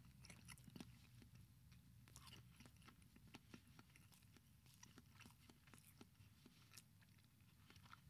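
Near silence: quiet room tone with faint, irregular clicks.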